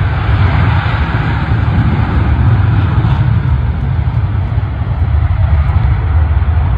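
Twin-engine F/A-18 fighter jet taking off, its engines giving a loud, steady rumbling roar with a deep low end.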